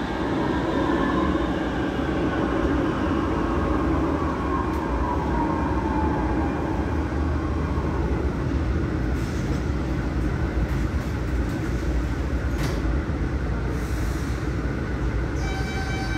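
Barcelona Metro series 4000 electric train heard from inside, braking into a station: running rumble with a motor whine falling in pitch as it slows. Near the stop come a few clicks and a short hiss.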